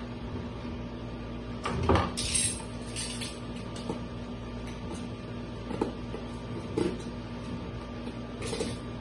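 Cardboard box being worked at by hand: scattered knocks and a few short scraping rustles, the loudest knock about two seconds in, over a steady low hum.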